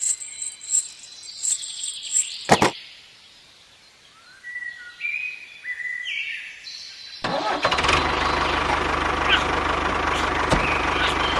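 Clicks and high chirps, then a short series of stepped chirping tones. About seven seconds in, an engine starts and runs steadily with an even, rough idle.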